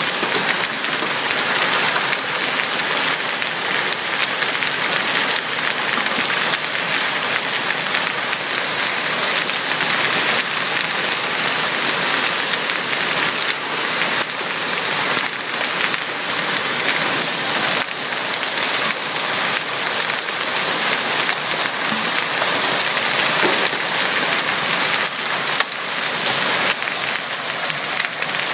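Heavy fall of large hail, golf-ball to baseball sized, with rain: a dense, steady clatter of countless impacts with no letup.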